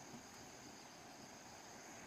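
Near silence: faint outdoor ambience with a steady, high-pitched insect chorus.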